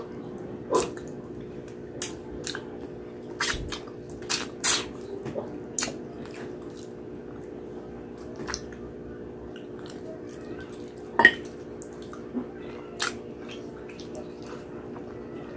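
Wet mouth sounds of eating braised pork hock with the fingers: lip smacks and sucking clicks, many close together in the first few seconds and then only now and then, over a steady low hum.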